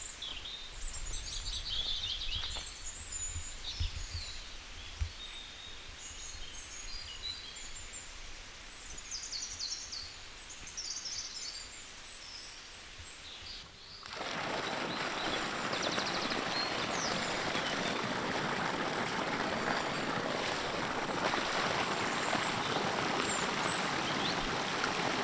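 Small birds chirping over a light outdoor rumble, then about halfway through a sudden change to a steady rush of water gushing from an irrigation pump's outlet pipe into a paddy field.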